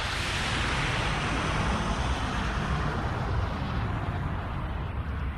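Anime sound effect of a surging energy burst: a sudden, sustained rush of noise over a deep rumble, its hiss thinning out after about four seconds.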